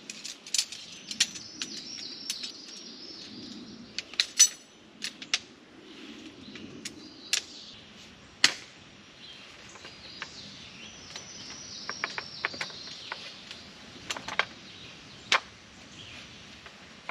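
A small collapsible camp table being assembled: a scatter of sharp clicks and snaps as its frame and legs are fitted together, with birds chirping in the background.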